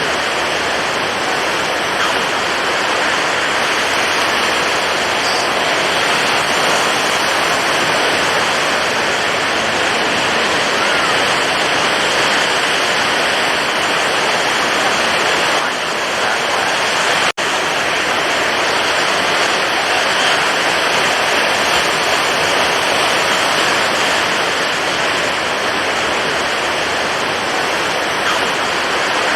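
Stormy ocean surf: a steady, dense wash of crashing water with no separate wave rhythm, broken by a split-second dropout a little past halfway.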